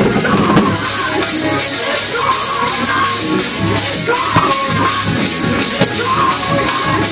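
Music: a rock-style song with drums and a sung or lead melody.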